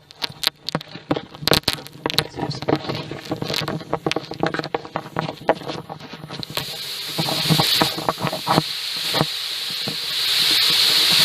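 Knocking and scraping of a plastic listening hose against a car exhaust muffler, then a steady high hiss from about six and a half seconds in that grows louder near the end: air from a vacuum cleaner at the tailpipe escaping through a leaking joint of an Edex muffler.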